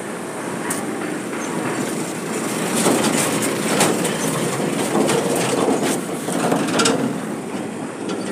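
Engines of a truck and a forklift running close by, the forklift carrying a large steel ship plate, with a steady engine noise and repeated metallic rattles and clanks, loudest in the middle.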